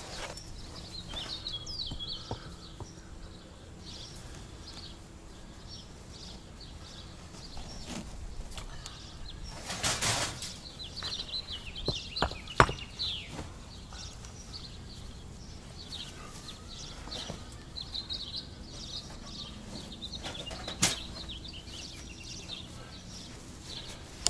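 Songbirds chirping on and off in the background, with a few sharp knocks of concrete bricks being handled on a wire cage trap; the loudest knock comes about halfway through.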